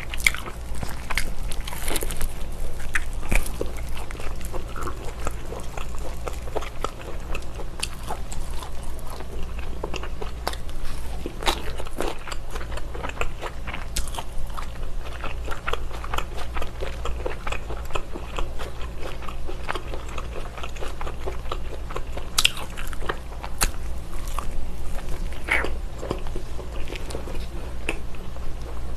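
Close-miked eating of baked slab bacon: biting and chewing, with many short sharp clicks and mouth sounds through the whole stretch.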